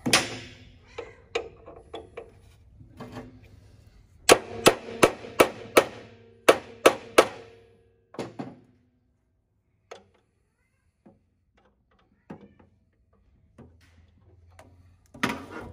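Hammer tapping a hex extractor bit into a stripped hex-head screw on a planer cutterhead to seat it. About four seconds in come roughly nine quick metallic taps with a ringing tone, then one more, followed by a few faint clicks.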